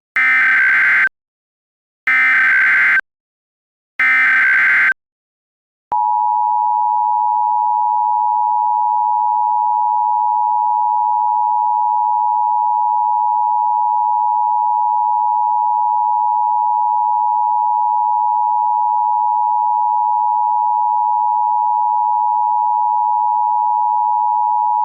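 Emergency Alert System SAME header: three bursts of warbling data tones, each about a second long and a second apart. About six seconds in, the steady two-tone EAS attention signal starts and holds unchanged for about nineteen seconds.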